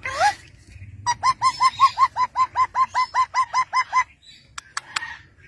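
A parrot calling: a short rising whistle, then a fast run of about twenty short repeated clucking notes, some seven a second, that stops abruptly about four seconds in.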